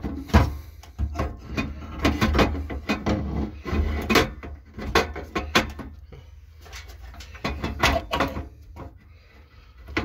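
Irregular metallic clicks and knocks as a gas water heater's gas valve and brass-jetted injector manifold are handled and fitted back into place, thinning out towards the end.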